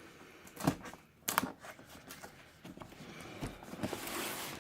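Handling of a sneaker box and its packaging: a few sharp knocks and taps in the first second and a half, then rustling that builds toward the end.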